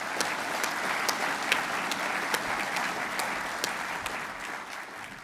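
Audience applauding, steady clapping that fades toward the end.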